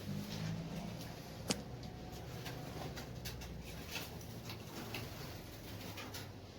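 Canaries and goldfinches in an aviary giving scattered short, high chips and calls, with one sharp click about a second and a half in and a steady low hum underneath.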